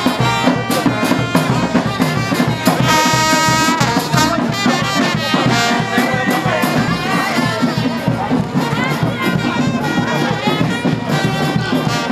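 Brass-band music: horns playing over a steady drum beat, with one long held horn note about three seconds in.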